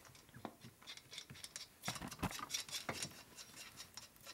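Faint clicks, taps and scrapes of a Harley shovelhead cylinder being worked down over the crankcase studs by hand, busiest about two seconds in.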